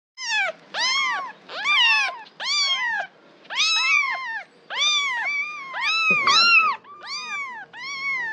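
Cat meowing over and over in a quick series, roughly one or two meows a second, each call rising and then falling in pitch.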